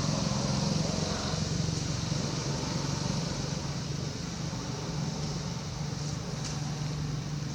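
Steady low hum of a running vehicle engine, with an even high hiss above it.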